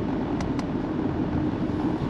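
Steady hum of a car's engine and road noise heard from inside the cabin, with two faint ticks about half a second in.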